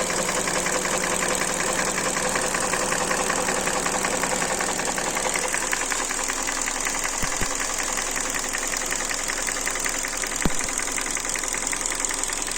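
Hyundai G4NB 1.8-litre aluminium four-cylinder petrol engine running with a fast, steady knock. The knock is piston knock from scored cylinder walls. There are two brief sharp clicks in the second half.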